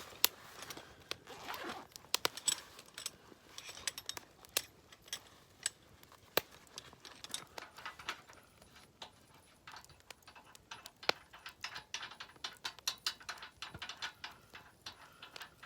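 Irregular small clicks, clinks and knocks of gear being handled, some sharp, with no steady rhythm.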